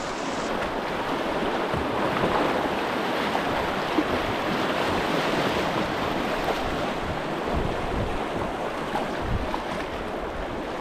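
River rapid water rushing and splashing around a whitewater kayak moving through choppy current, with low wind buffeting on the microphone.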